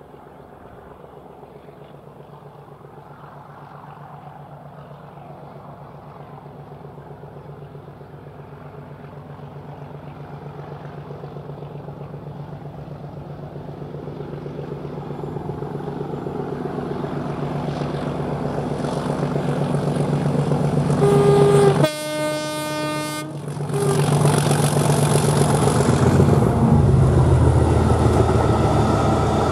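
Class 37 diesel locomotive's English Electric V12 engine drone growing steadily louder as it approaches under load with a train of hopper wagons. About three-quarters of the way through it sounds its horn for about a second and a half, then passes close with the engine note dropping and the wagons rolling by.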